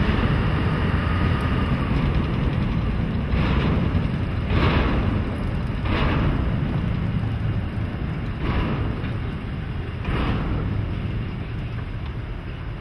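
Vintage FS E.428 electric locomotive running slowly through the yard: a steady low rumble that fades as it moves away, with five short hissing bursts in the middle.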